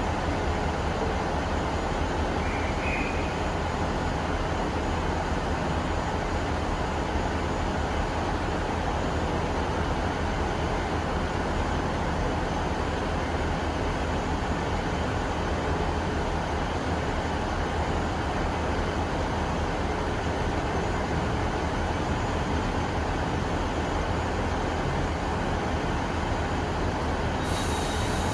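Steady low noise of a train running, even throughout, with a high hiss coming in near the end.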